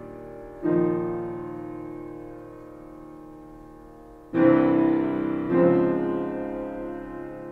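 Slow background music of sustained keyboard chords: a chord struck about a second in, another just past four seconds and a third near six seconds, each left to ring and fade.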